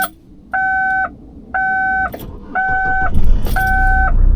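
A truck's warning chime beeping steadily about once a second, five half-second beeps. About three seconds in, the truck's engine starts and settles into a steady low running note under the chime.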